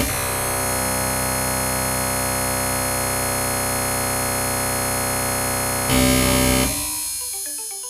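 Dark MIDI arrangement of a phone ringtone played through the FluidR3 GM soundfont: densely stacked synthesized notes merge into a steady wall of sound. It gets louder for a moment about six seconds in, then dies away near the end.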